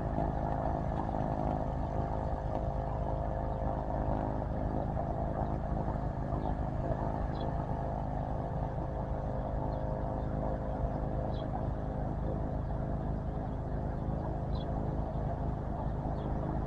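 Cessna Caravan's PT6 turboprop engine idling steadily on the ground: a constant droning hum that does not change in pitch.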